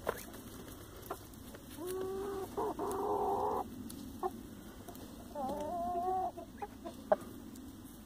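Hens calling: two drawn-out calls, the first about two seconds in and a shorter one past the halfway mark, with a few short clicks between.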